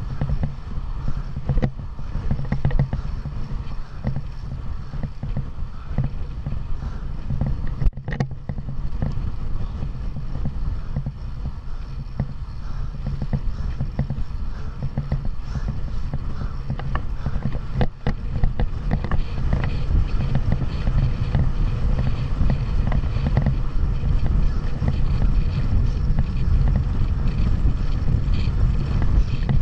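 Wind buffeting the microphone of a camera riding on a fixed-gear bicycle at race speed: a steady low rush that grows louder about two-thirds of the way through, with a few scattered knocks.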